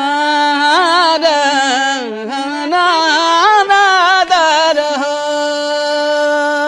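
A wordless, sliding folk vocal line over a steady harmonium drone. The voice settles on one long held note and stops just before the end.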